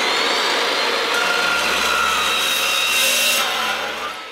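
Abrasive chop saw cutting through a 2.5-inch exhaust pipe: a loud, steady grinding with a held whine from the spinning disc, dying down near the end as the cut finishes.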